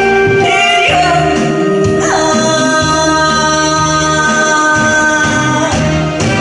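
Woman singing a Korean trot song into a microphone over instrumental backing with a steady low beat.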